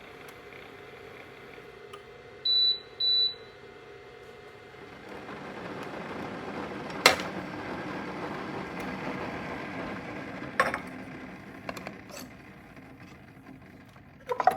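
Keurig K-Café coffee maker beeping twice, then running with a steady noise, with a few sharp clicks and knocks.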